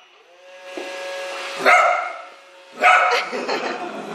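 Dog barking at a running robot vacuum cleaner: two loud barks about a second apart, over the vacuum's steady motor hum.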